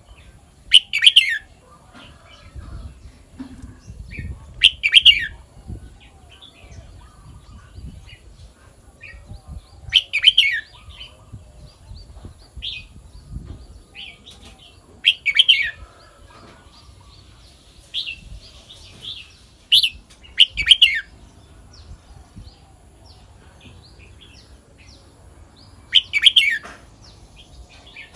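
Red-whiskered bulbul singing: short, loud whistled phrases about every five seconds, with fainter chirps in between.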